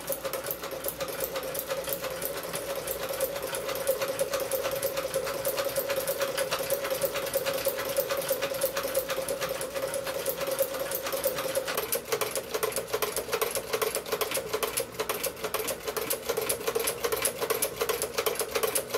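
1908 Singer 29-4 treadle sewing machine stitching through leather strips, a fast, even clatter of stitches over a steady hum. The hum drops a little in pitch about twelve seconds in.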